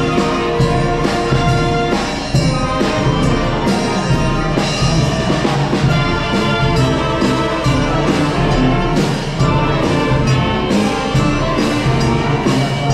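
Brass band playing live: brass instruments carrying a tune over a steady drum beat.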